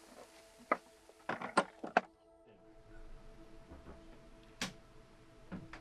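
Soft, sustained music chords, with a few irregular knocks in the first two seconds. One sharp thunk comes about four and a half seconds in.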